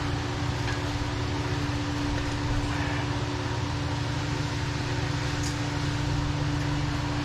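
Steady low mechanical hum with a constant droning tone, holding an even level throughout, with a faint click about five and a half seconds in.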